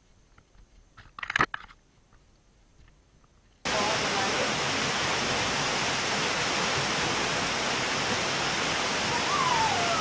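Quiet stretch with one brief loud sound about a second in, then the steady rush of a small waterfall pouring into a rock pool cuts in suddenly and continues. Near the end a voice calls out over the water noise.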